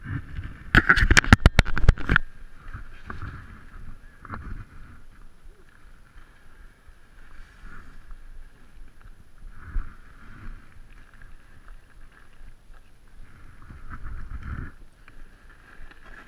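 Gear sled being dragged down a snowy bank on a rope: a quick run of sharp knocks about a second in, then quieter scraping and crunching in the snow.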